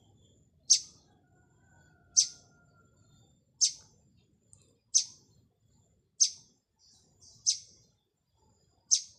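A small bird giving seven short, sharp, high chirps, one about every second and a half.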